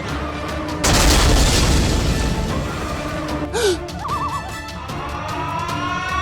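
Background music with a sudden boom sound effect about a second in that dies away over a couple of seconds.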